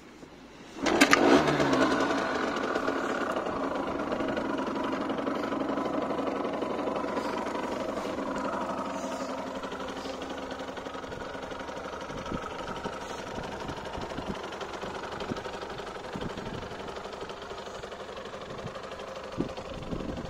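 Derbi Senda R 50cc two-stroke engine kick-started, catching about a second in with a brief rev, then idling steadily.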